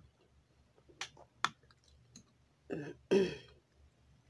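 Metal forks click against a bowl twice. About three seconds in comes a short throaty sound from the eater, the loudest thing heard.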